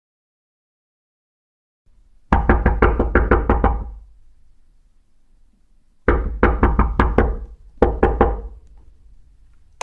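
Rapid knocking on a door: about two seconds in, a fast run of roughly eight heavy knocks at about five a second, then after a two-second pause another fast run that breaks briefly and finishes with three more knocks.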